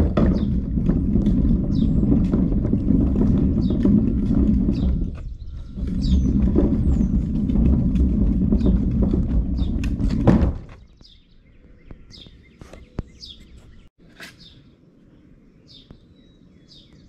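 Wheeled plastic trash can rolling over an asphalt driveway: a loud, steady rumble of the wheels that eases briefly about five seconds in, resumes, and stops with a knock after about ten seconds. Birds chirp in the background, and they are all that is heard once the rolling stops.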